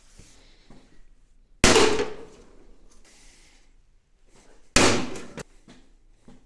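Acrylic glass sheet being cut to size, heard as two sudden loud cracking bursts: one about a second and a half in, one near five seconds. Each is under a second long, with quieter handling sounds between them.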